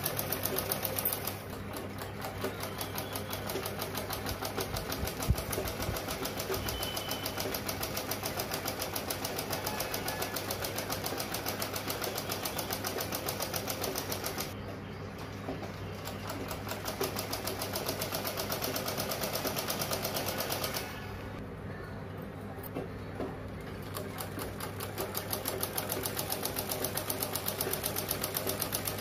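Black Usha sewing machine stitching steadily: a fast, even clatter of needle strokes, briefly quieter twice as the seam goes on, with one sharp knock about five seconds in.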